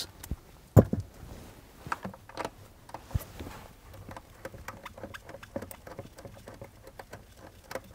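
Ratchet on a deep 10 mm socket clicking in quick short runs as a nut is backed off its stud. There is a sharp knock about a second in and a dull thud near the middle.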